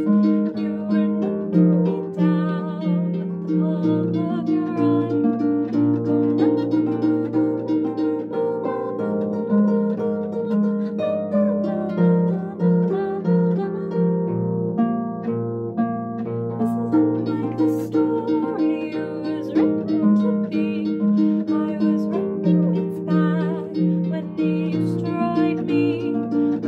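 Concert harp played with plucked chords and running notes, a woman's voice singing along with it.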